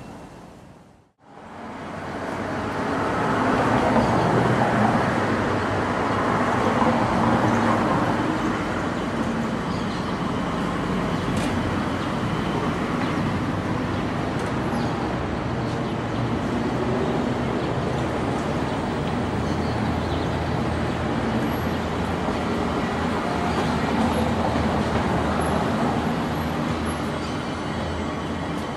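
Steady city traffic noise mixed with the Angels Flight funicular car running down its steep rail track, after a brief silent gap about a second in.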